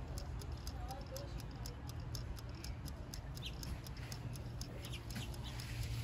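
Backyard outdoor ambience: short high bird chirps a few times, over a run of faint, evenly spaced ticks about four a second and a steady low hum.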